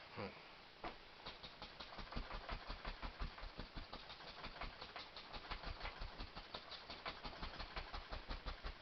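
Bristle brush dabbing and scrubbing acrylic paint onto a stretched canvas in quick, even strokes, several a second, each with a soft low thump.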